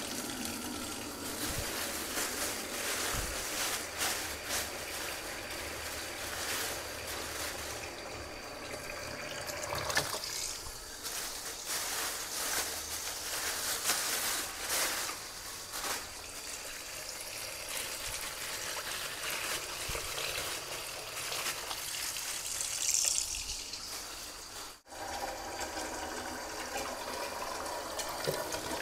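Kitchen tap turned on and running steadily into a basin of water in a stainless-steel sink, splashing as pork pieces are rinsed under it. A brief break near the end, then the stream falls into a steel pot.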